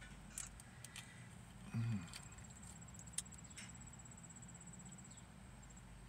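Faint, sharp snaps and crackles as a thin-walled purple UFO hot pepper is torn open by hand, the loudest about three seconds in. Under them runs a steady high, pulsing insect trill.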